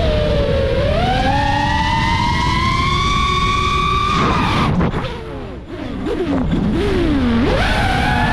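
FPV quadcopter's brushless motors whining, the pitch climbing steadily as throttle is held. About four and a half seconds in it drops away and quietens as the throttle is cut, wavers low, then climbs sharply again near the end.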